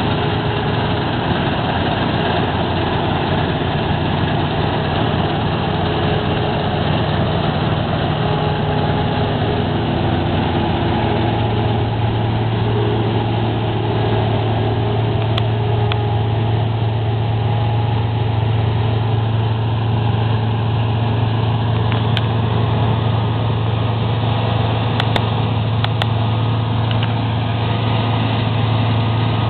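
Claas Tucano 320 combine harvester running steadily while harvesting, its diesel engine and threshing machinery making a continuous loud hum. The low engine note drops a little about a third of the way through.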